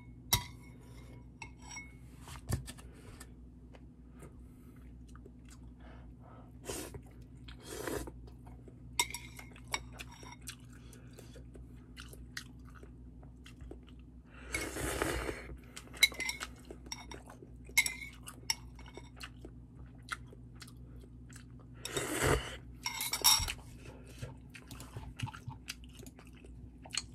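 Close-up eating of instant ramen: chewing, with scattered small clicks of chopsticks against the bowl. About halfway through comes a longer slurp as broth is drunk straight from the bowl, and a second slurping stretch follows some seconds later.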